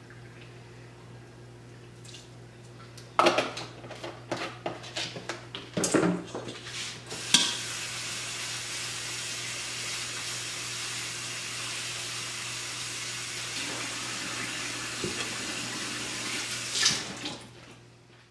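Dishes and kitchenware clattering in a sink for a few seconds, then a kitchen tap is turned on and water runs steadily for about ten seconds before being shut off near the end. A low steady hum sits underneath throughout.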